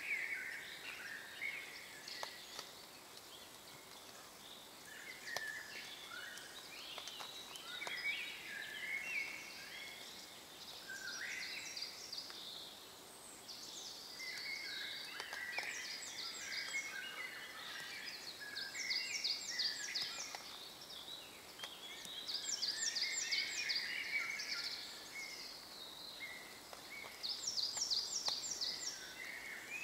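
Several songbirds singing together in overlapping chirped phrases, with bursts of fast repeated high notes. The singing grows louder in the second half.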